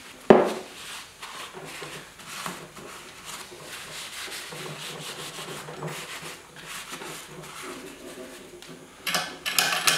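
A sharp knock just after the start, then a cloth rag rubbing and wiping over the scroll saw's cast-metal arm and pivot. Louder clattering handling comes in near the end.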